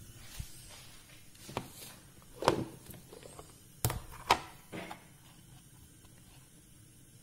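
A plastic spice box and its little measuring spoons handled on a kitchen counter: a string of sharp clicks and knocks, about six in five seconds, the loudest about two and a half and four seconds in. It goes quiet after that.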